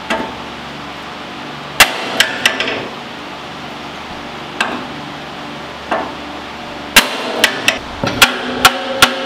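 A hammer striking the steel front J-arm and spindle of a go-kart about eleven times at uneven intervals, each blow a sharp metal-on-metal strike that rings briefly, with a quicker run of blows in the last two seconds. The J-arm pivots are stiff and stuck, and the blows are meant to free them.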